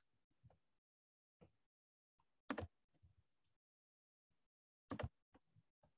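A handful of sharp clicks and knocks from a computer keyboard and mouse, the two loudest about two and a half seconds apart, with dead silence between them.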